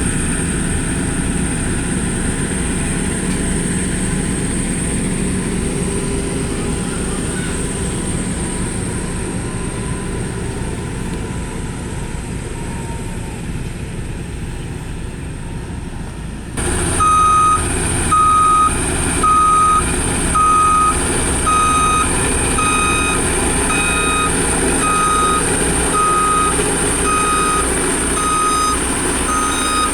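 Engine of a heavy road-building machine running steadily. About halfway through the sound changes abruptly and a reversing alarm starts beeping about once a second over the engine.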